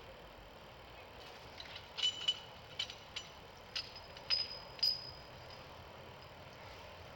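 Metal grappling hook clinking as it is handled on its rope: about half a dozen sharp metallic clinks, some ringing briefly, between two and five seconds in.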